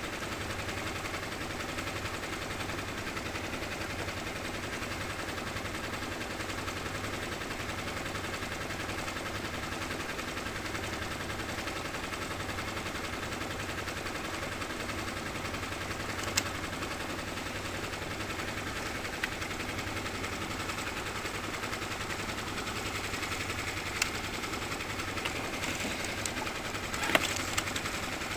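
Small outboard motor running steadily at trolling speed, a constant even drone. A few sharp clicks in the second half.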